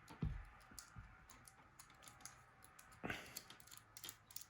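Faint small clicks and ticks of tiny phone parts and screws being handled during a Nokia E71 disassembly, with two soft knocks, one about a quarter second in and one about three seconds in.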